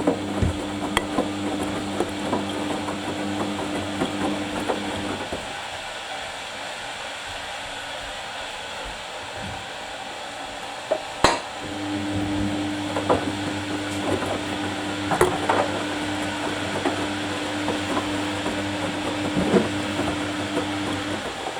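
Samsung washing machine's drum motor humming as it tumbles the wash, stopping for about six seconds between turns and starting again just after a sharp click, with scattered light knocks from the drum.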